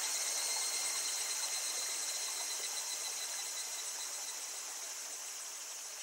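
A steady chorus of cicadas over the murmur of a small babbling stream, slowly growing fainter.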